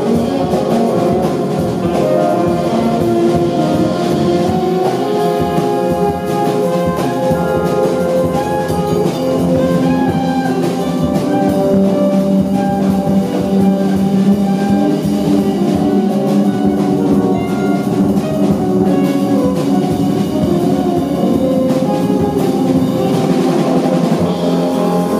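Live jazz quartet playing: saxophone over double bass, synthesizer and drums, with busy drum strikes under long held saxophone notes.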